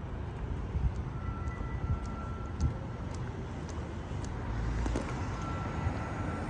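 City street traffic: a steady low rumble of passing vehicles, with a faint thin high whine that comes and goes twice. Faint light ticks recur about twice a second.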